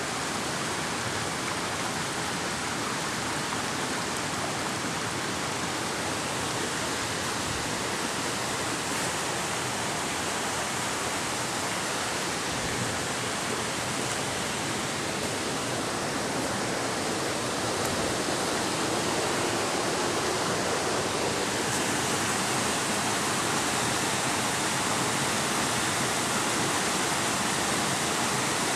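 Steady rushing of a small rocky stream tumbling over stones in little cascades, growing slightly louder about three-quarters of the way through.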